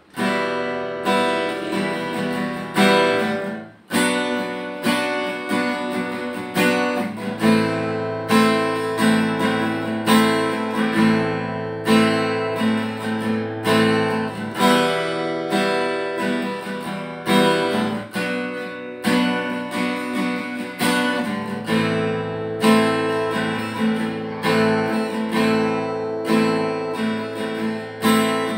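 Yamaha F310 dreadnought acoustic guitar strummed through a chord progression, with a brief break about four seconds in.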